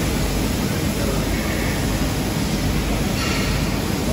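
Steady noise of running workshop machinery, an even hiss and rumble with no rhythm, with two faint, brief higher sounds about a second and a half in and about three seconds in.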